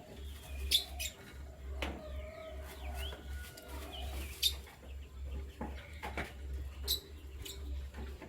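Canaries chirping in short gliding calls, with sharp clicks and taps scattered among them. A low, steady hum runs underneath.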